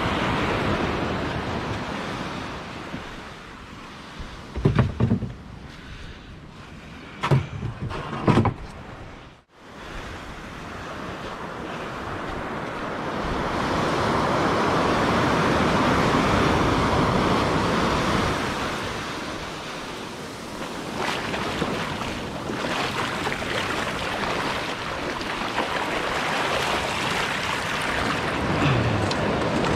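Sea surf washing onto a sandy beach: a steady rush of waves that swells and fades every few seconds, with wind on the microphone. A few short thumps come in the first third, and the sound drops out briefly about a third of the way in.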